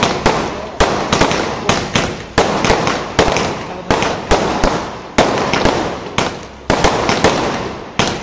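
Multi-shot aerial firework cake firing air-burst shells in quick succession: a steady string of sharp bangs, roughly one every half second to second, each one trailing off before the next.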